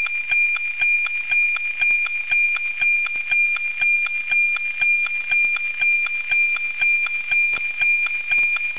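NOAA-19 weather satellite's analogue APT image signal, received on an RTL-SDR and FM-demodulated: a steady high tone beating with a tick-tock twice a second, one tick for each image line, over light radio hiss.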